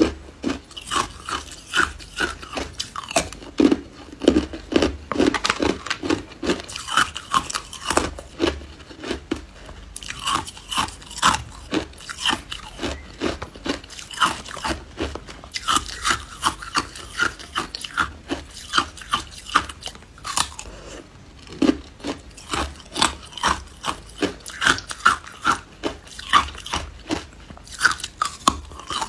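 Hard ice cubes being bitten and chewed: runs of quick, sharp crunches with a few short pauses between mouthfuls.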